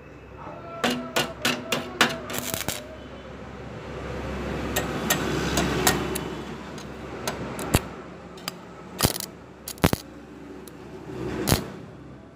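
Stick-welding electrode tapped and scratched against a thin steel square tube and its base plate to strike the arc: a run of sharp clicks and taps, with a stretch of sputtering arc crackle around the middle.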